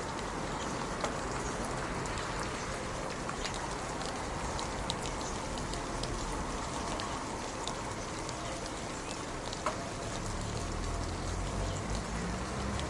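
Steady rain falling, with separate drops ticking sharply now and then. A low rumble joins about ten seconds in.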